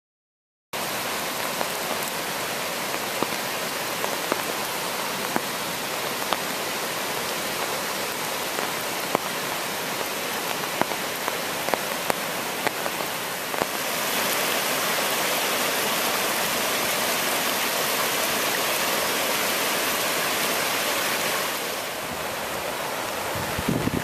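Floodwater of a swollen creek rushing steadily, starting just under a second in and growing a little louder for several seconds in the middle.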